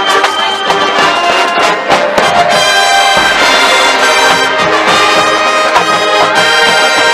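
A high school marching band playing loud brass chords. Drum hits come through in the first couple of seconds, then the horns hold sustained chords.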